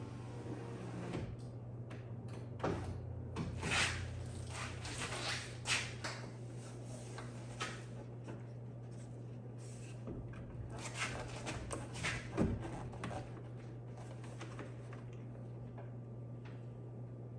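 Scattered clicks, knocks and light rattles of parts being handled, in two busy spells, over a steady low hum.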